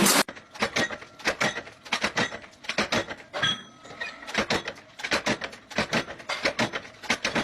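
An uneven series of short, sharp clicks and knocks, a few a second.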